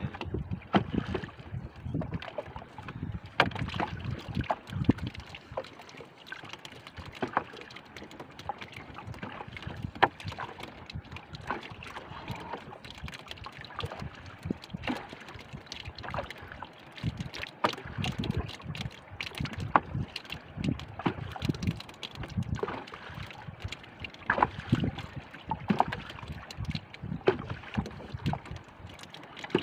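Water slapping against a small boat's hull, with irregular knocks and clicks throughout.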